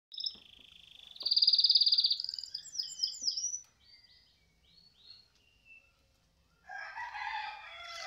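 Domestic canary singing: a loud rapid trill about a second in, then a run of quick falling whistles and softer spaced chirps. Near the end a rooster crows, lower and longer.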